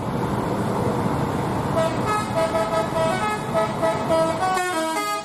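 Tour buses' multi-tone musical horns playing a quick tune of short stepped notes over steady engine and road noise. The road noise drops away near the end while the horn notes carry on.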